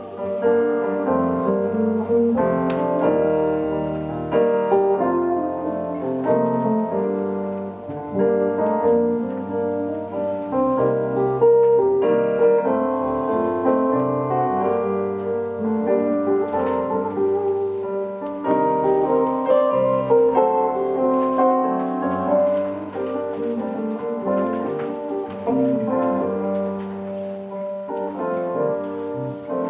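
Piano-led instrumental music, a passage of the show's score with no singing.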